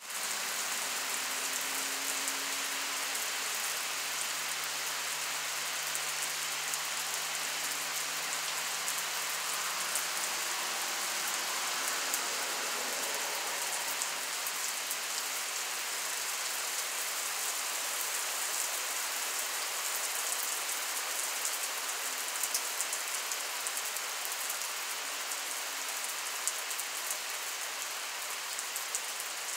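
Heavy rain falling on wet asphalt pavement, a steady hiss of drops splashing on the puddled surface.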